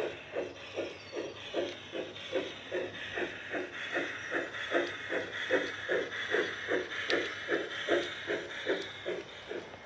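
Garden-scale model steam locomotive's sound unit giving an even steam chuff, close to three beats a second, as the engine runs past. A steady hiss comes up about three seconds in as it draws near.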